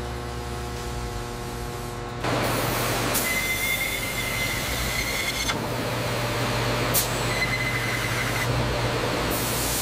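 Steady machine hum, then about two seconds in a CNC machine starts cutting a metal part under coolant spray: a loud hissing noise with a high whine that comes and goes.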